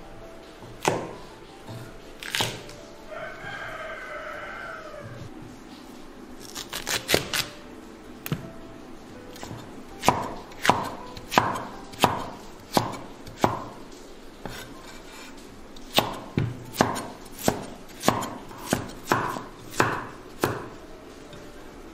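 Chinese cleaver chopping a white radish into chunks on a wooden cutting board: sharp knocks of the blade striking the board, a few scattered ones at first, then two runs of quick strokes at about two a second. A rooster crows once a few seconds in.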